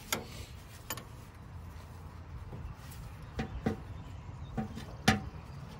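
A wrench clicking and knocking against a power steering line fitting as the fitting is loosened: about six short, sharp metal clicks spread through the moment, the loudest about five seconds in.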